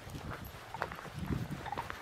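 Footsteps on a dirt forest trail: a walker's steps and two leashed whippets' paws pacing along, as irregular soft thuds and scuffs.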